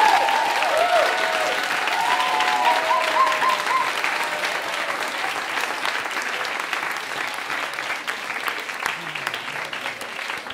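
Audience applauding, loudest at first and slowly dying down, with a few voices whooping and cheering in the first four seconds.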